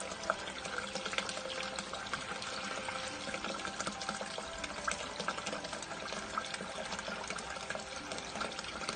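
Water running and trickling through an opened drain chamber that is being rodded clear of a wet-wipe blockage, with small clicks and scrapes from the drain rod working in it.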